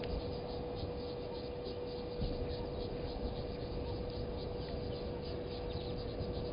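Waterhole ambience: short high insect chirps repeating about four times a second, over a steady mid-pitched hum and a low, uneven rumble.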